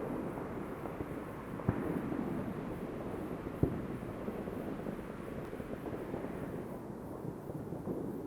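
Fireworks going off all around: a continuous rumble of many distant bursts, with two sharper bangs standing out, one about a second and a half in and another about two seconds later, and a few fainter cracks.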